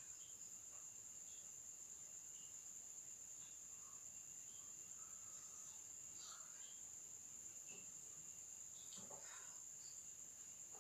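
Faint, steady high-pitched tone, with a few soft scratches of a pen on paper now and then.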